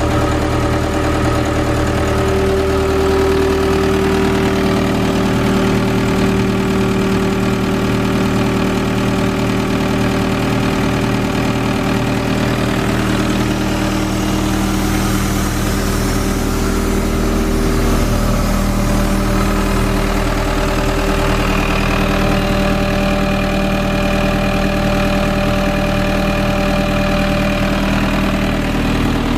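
Diesel engine of a 2009 Airman PDS185S towable air compressor, a Nissan TD-27 four-cylinder, running at a steady idle. Its note shifts slightly about two-thirds of the way through.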